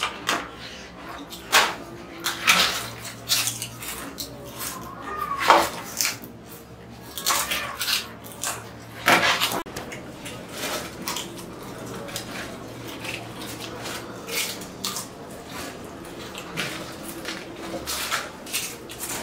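Potato chips crunching and crackling as they are bitten from bowls and chewed, in irregular sharp crunches throughout.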